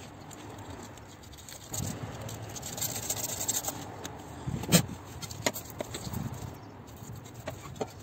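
Light scraping and clicking from hands handling parts at a car's turbocharger, with one sharp knock a little before halfway.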